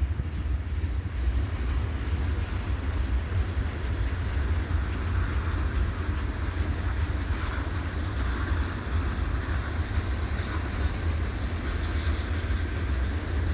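Freight cars of a slow-moving freight train rolling past: a steady rumble of wheels on rail, with a few faint clicks.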